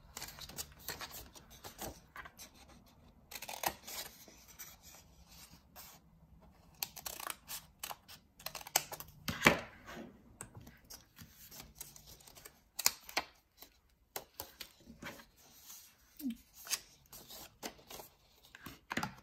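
Scissors snipping through folded white paper in short, irregular cuts, with pauses where the paper is handled and turned between cuts.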